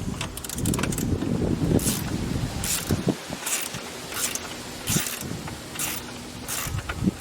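Ratchet wrench with a 10mm socket undoing a screw: a rattle of clicks and knocks at first, then short ratcheting rasps repeating about once every 0.8 s as the handle is swung back and forth.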